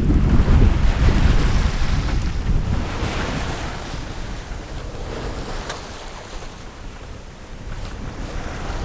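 Wind buffeting the microphone over the rush of water along a sailboat's hull under sail, loudest at first and easing off after a few seconds.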